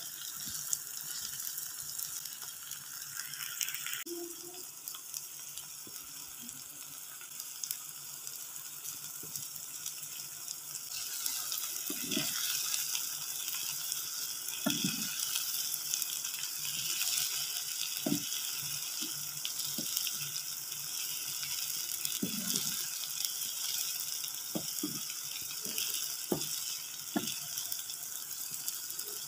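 Chopped chilies, shallots and garlic sizzling in oil in a nonstick wok as the spice paste fries, stirred with a spatula. The sizzling grows louder about ten seconds in, and short knocks from the spatula against the pan come now and then after that.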